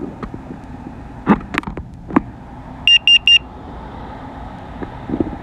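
Three quick, high electronic beeps from the drone's remote controller as return-to-home is engaged, preceded by a few clicks of handling the controls.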